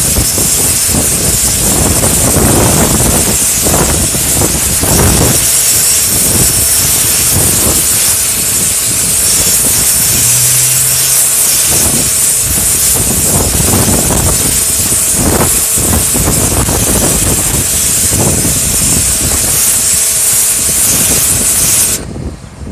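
1800 psi pressure washer blasting a concentrated full-pressure jet at a graffitied garage wall: a loud, steady hiss of spray over the pump's hum, which cuts off suddenly near the end as the spray stops.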